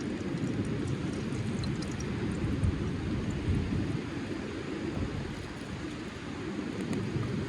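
Steady low rumbling noise with a few faint ticks.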